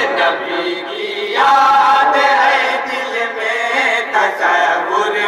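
A chorus of men's voices chanting a devotional naat together in unison, with no instruments.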